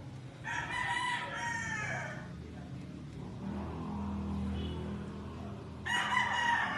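A rooster crows twice, once starting about half a second in and again near the end. Between the crows a sleeping dog gives a low snore.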